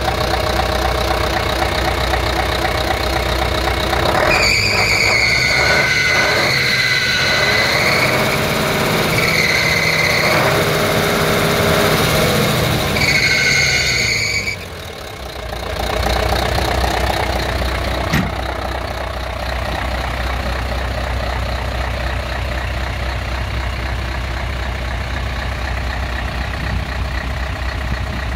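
Mercedes-Benz SK 3538's V8 diesel engine idling steadily. For about ten seconds in the middle, a hand held over the open pipe at the front of the engine brings high-pitched whistling that comes and goes in spells.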